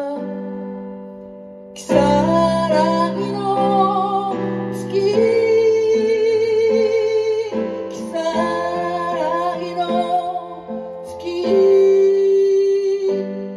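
A woman singing long held notes with vibrato over chords on a Roland digital piano, in four phrases that begin after a soft, fading lull of about two seconds.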